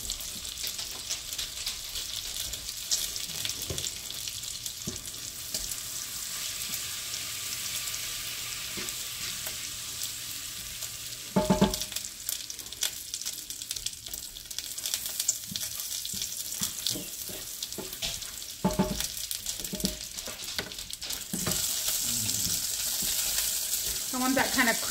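Melted butter with herbs and seasonings sizzling steadily in a nonstick frying pan, with bacon frying in a small pot beside it. A utensil scrapes and stirs through the pan, and there are two louder knocks of a utensil against the pan.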